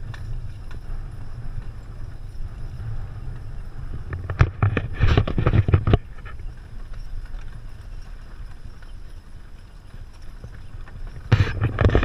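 Six-horse Percheron team pulling a wagon: a steady low rumble of the rolling wagon with hoofbeats. Two louder, noisier stretches come about four seconds in and again near the end.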